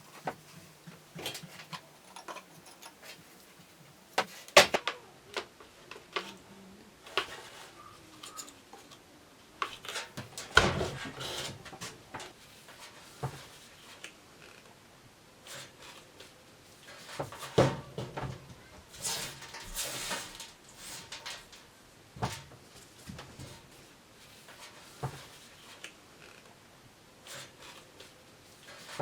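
Intermittent clicks, taps and knocks of small parts being handled and fitted together, with short scraping sounds and quiet stretches between. The loudest knocks come about four, ten and seventeen seconds in.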